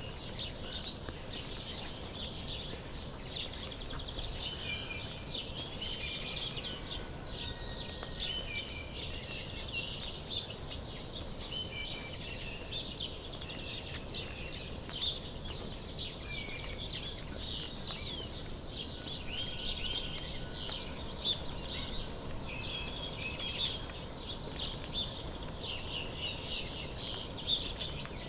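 Songbirds chirping and singing without a break, a dense chorus of short high calls and brief whistled notes, over a steady low background noise.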